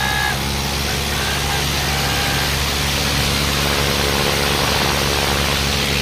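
Eicher 557 diesel tractor engine running steadily under heavy load, pulling against another tractor on a chain. A few faint shouts come in the first two seconds.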